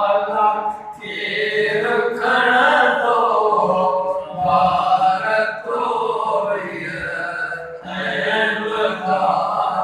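A man's solo voice chanting a naat, an Islamic devotional poem, unaccompanied, in long sustained melodic phrases with short breaks for breath between them.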